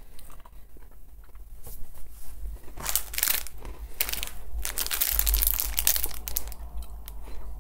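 Foil snack wrapper crinkling as it is handled, in short crisp rustles from about three seconds in.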